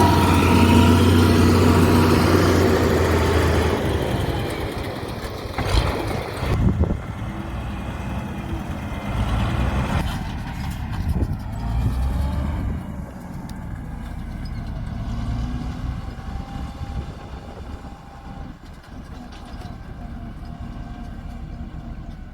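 Heavy diesel road-construction machine running, loud with a deep steady hum for the first few seconds, then quieter and fading. Two sharp clanks come around six seconds in.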